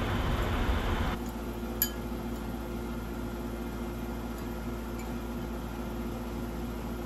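A spoon clinks once on a ceramic soup bowl about two seconds in, with a few faint taps of utensils later, over a steady low hum. A rushing hiss stops abruptly about a second in.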